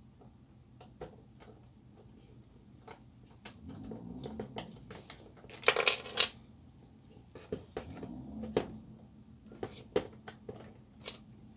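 Plastic and metal parts of a laser printer fuser unit clicking and tapping as they are handled and fitted by hand, with a loud quick cluster of clicks about halfway through and softer rustling between.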